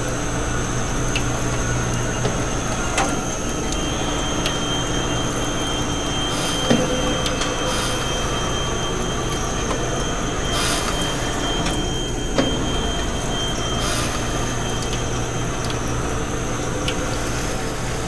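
Automated carcass-cutting machinery running with a steady hum and a constant high whine. A second, higher whine holds for about ten seconds in the middle, and there are a few sharp clicks.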